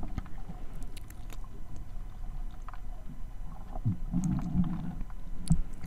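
Underwater sound picked up by a GoPro during snorkelling: a low, muffled rumble of moving water with scattered faint clicks, and a short low gurgle about four seconds in.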